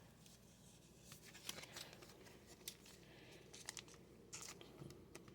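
Near silence with faint rustling and a few light clicks of trading cards being handled.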